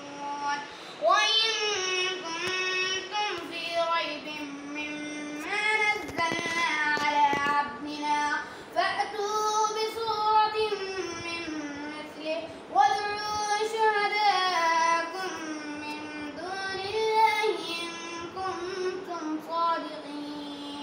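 A child chanting Qur'an recitation in Arabic, melodic and unaccompanied, in long phrases with drawn-out notes that rise and fall, pausing between verses.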